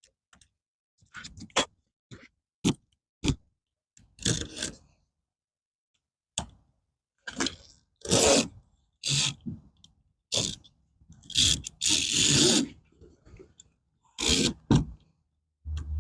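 Carpet knife cutting along the edge of a screen mesh to trim off the excess: a few sharp clicks, then a run of scraping strokes, each about half a second to a second long, louder in the second half.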